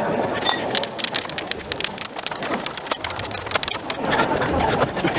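Irregular metal clinks and knocks of hand tools working on a tank destroyer's return roller mounting, against a steady high-pitched tone that starts about half a second in and stops about four seconds in.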